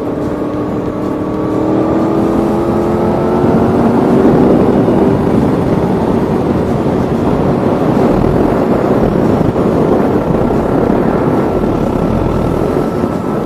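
Aprilia Tuono V4's V4 engine accelerating, its pitch rising over the first few seconds. It then settles into a steady run under a loud, even rush of wind and road noise.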